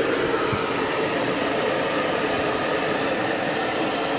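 Hair dryer blowing steadily with an even rushing sound and a constant motor hum, drying a freshly bathed dog's coat.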